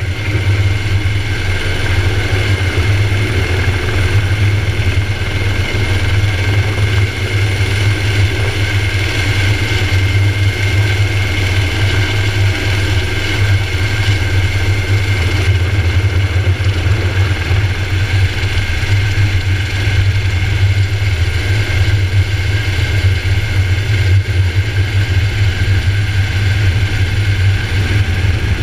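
Helicopter running at flight power as it lifts off and climbs away, heard from a camera fixed to its fuselage: a steady low drone with a constant high whine on top.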